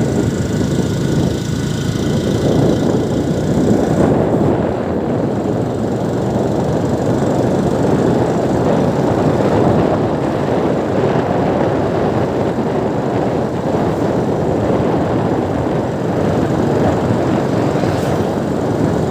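A vehicle's engine and road noise, running steadily throughout.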